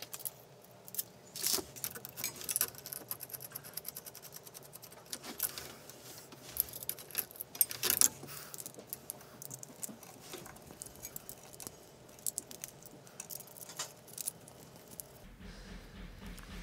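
Small metal and plastic parts clinking, clicking and rattling in the hands during hand assembly of a 3D printer's extruder carriage, in irregular runs of sharp clicks, the loudest about eight seconds in.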